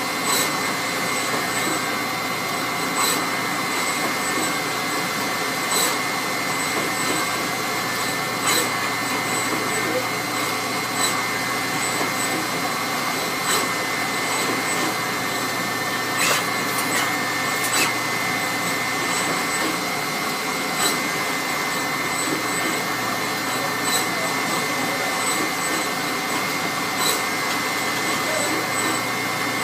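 Fuji NXT SMT pick-and-place machine running at low speed with its H01 head: a steady whirring hum with a constant high tone, broken by a sharp click about every two and a half seconds.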